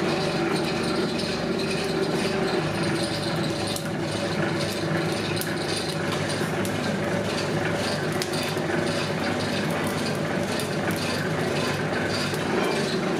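Two-roll rubber mill running with steady mechanical noise from its gear-driven steel rolls as a silicone rubber sheet passes through the nip, with frequent irregular clicks and clatter over the noise.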